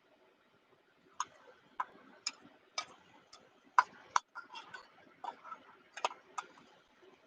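A series of sharp, irregular clicks and taps, starting about a second in and coming roughly every half second, with softer clatter between them.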